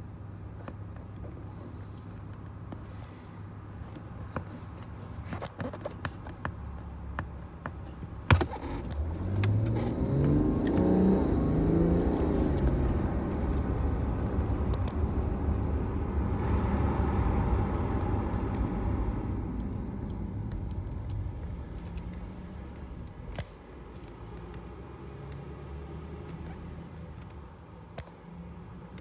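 BMW car heard from inside the cabin pulling away and speeding up. A sharp click comes first, then the engine climbs in pitch for a few seconds, the engine and road noise run louder for several seconds, and the sound eases back down near the end.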